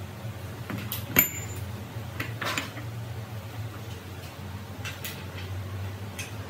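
Metal tools and parts clinking and scraping as they are handled, with one sharp metallic clink about a second in and a few softer scrapes after, over a steady low hum.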